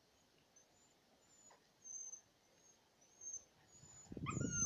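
Siberian husky puppy whining and yipping with a high, rising cry about four seconds in, over a low pulsing rumble as the puppies wrestle. Before that, only faint high chirps.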